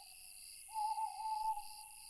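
An owl gives one long, slightly wavering hoot starting a little under a second in and fading away, over a steady pulsing chorus of crickets and other night insects.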